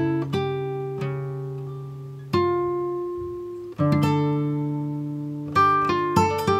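Background music on plucked acoustic guitar: slow chords and single notes struck every second or two, each left to ring and fade.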